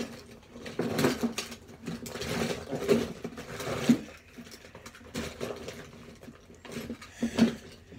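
Rummaging through and handling small objects: irregular rustling, clicks and light knocks, with a sharper knock about four seconds in and another near the end.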